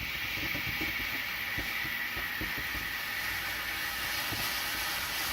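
Mega Black Smoke smoke firework burning with a steady hiss as it pours out dense black smoke.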